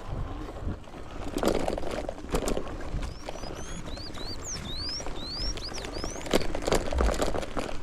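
Crunching and rattling of a bicycle riding a dirt trail, loudest about a second and a half in and again near the end. From about three seconds in, a bird sings a run of short rising whistles.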